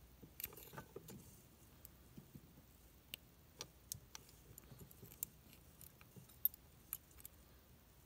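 Faint, scattered metallic clicks and ticks of a lock pick and tension wrench working inside the keyway of a Sargent & Greenleaf padlock while it is being picked, a quick cluster at the start and single clicks after, the loudest about six and a half seconds in.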